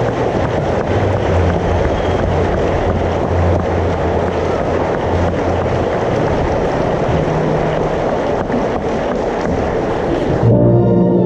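Audience applauding, a steady loud clapping throughout. About ten seconds in it breaks off and the theatre orchestra starts playing.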